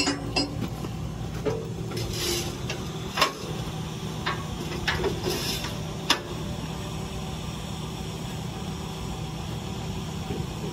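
Diesel tractor engine idling steadily, with a series of sharp metallic clicks and clanks over the first six seconds as hydraulic hose couplers and the wagon hitch are undone.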